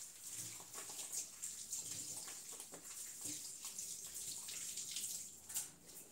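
Water running from a tap and splashing into a sink, with irregular splashes; it fades near the end.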